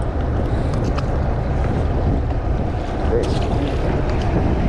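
Steady low rumble on the deck of a deep-sea fishing boat: wind buffeting the microphone over the boat's engine and the sea, with a few faint clicks.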